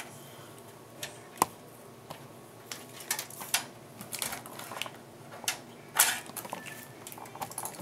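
Scattered sharp metallic clicks and light rattles as expansion-slot covers are worked out of a steel PC case. The loudest clicks come about a second and a half in and about six seconds in, with a quick run of small clicks in between.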